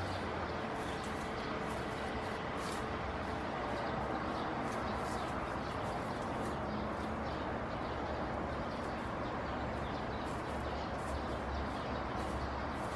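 Dry leaves and twigs rustling and crackling in small irregular clicks as a North Island brown kiwi forages, probing the leaf litter with its bill, over a steady background rumble.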